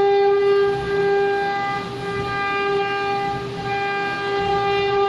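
Sawmill machinery running with a steady, pitched whine over rough mechanical noise.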